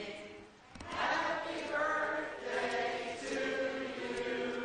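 A group of people singing together, holding long notes, with a brief break about half a second in.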